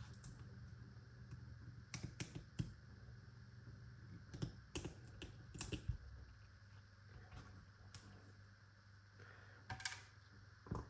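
Scattered light metallic clicks and taps as small springs and trigger parts are worked out of a Baikal double-barrelled shotgun's trigger mechanism with pliers, over a low steady hum.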